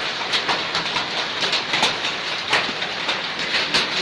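Hailstorm with heavy rain: a steady hiss of rain with many irregular sharp clacks of hailstones striking hard surfaces.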